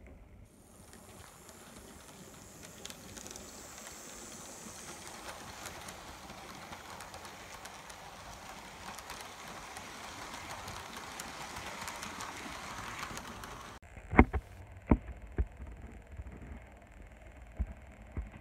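A model railway train running along the track: a steady whirring rush of motor and wheels that slowly grows louder, then cuts off suddenly near the end, followed by a few sharp clicks and knocks.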